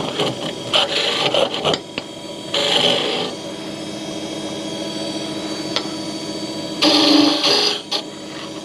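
Wood lathe running with a steady hum while a turning tool cuts into a spinning blank of padauk, giving three short rasping cuts, the last near the end.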